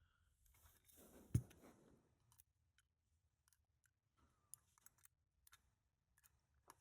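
Mostly near silence, broken by one sharp click about a second and a half in and a few faint ticks later: small metal lock parts being handled.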